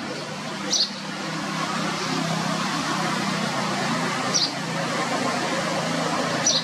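Steady rumble of road traffic or a running engine, swelling slightly after the first second. Three very short high chirps come through it, about a second in, after four seconds and near the end.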